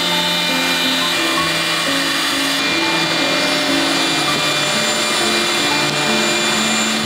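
CNC router spindle running and milling through plywood: a steady high whine over a dense, even hiss, with background music playing over it.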